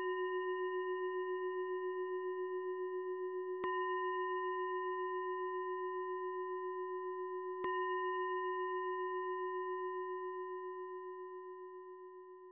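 Singing bowl struck three times, about four seconds apart. Each strike rings on in a long, wavering tone that slowly fades out near the end.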